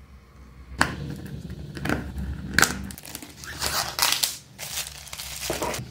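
Clear plastic shrink-wrap on a cardboard box being slit with a craft knife and peeled off: a sharp snap about a second in, then a series of crinkling, crackly rustles.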